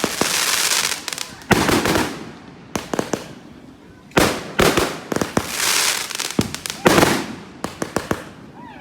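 Aerial fireworks going off one after another: a string of sharp bangs, some in quick pairs, each trailing off into a rush of crackle.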